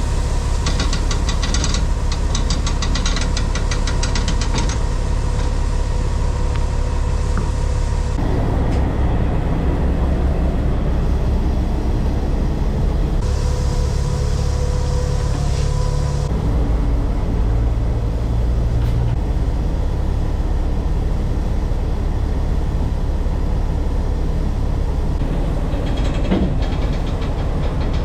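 Heavy vehicle engine running with a steady low drone. The sound shifts abruptly about eight and sixteen seconds in. A fast clicking rattles over it for a few seconds near the start.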